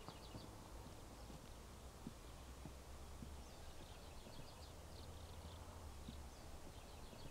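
Faint outdoor ambience: a steady low rumble with short rapid trills of bird chirping now and then, and a few soft scattered clicks.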